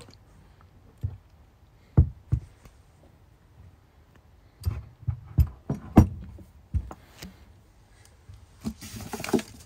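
A small cast-metal swivel bench vise being handled and set down on a wooden countertop: a string of sharp, irregular knocks and clunks as it and its loose metal parts hit the wood. Plastic wrapping crinkles near the end.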